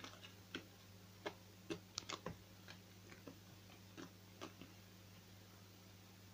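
Slime being worked by hand, giving scattered faint crackles and clicks at irregular intervals, thinning out after about four and a half seconds, over a steady low electrical hum.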